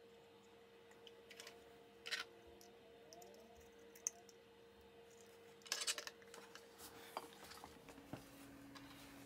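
Faint clicks and taps of small metal parts as a Marey tambour and its writing-lever clamp are handled and fitted together, with a short cluster of clicks about six seconds in.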